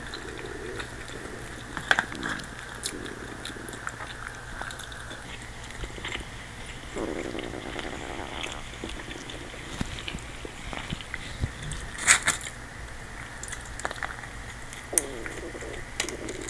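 A person's stomach rumbling and gurgling in several separate bouts, a full stomach digesting a large meal. A few sharp clicks sound in between, the loudest about twelve seconds in.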